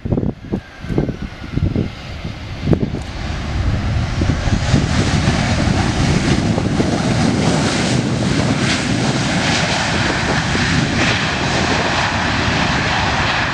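Airbus A320 jetliner just after touchdown, its jet engines swelling about four seconds in to a loud, steady rush, typical of reverse thrust on the landing roll. Gusts of wind buffet the microphone before that.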